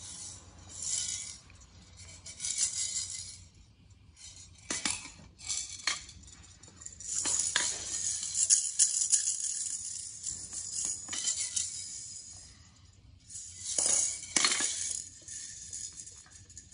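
A maraca shaken by a small child in short, irregular bursts of rattling, with gaps between; the longest run comes about seven to nine seconds in and another about fourteen seconds in.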